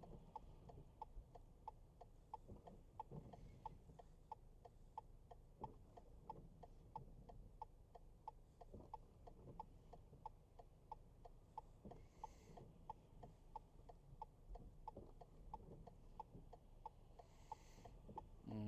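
A car's turn-signal indicator clicking steadily, a little over two ticks a second, in a quiet cabin while waiting to pull out.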